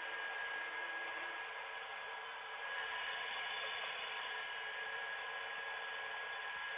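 A small electric blower runs steadily: a rush of air with a thin, high, steady whine.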